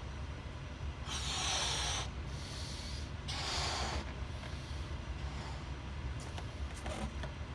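A person blowing up a balloon by mouth: two breaths of about a second each blown into it, with a short pause between. A few faint taps near the end.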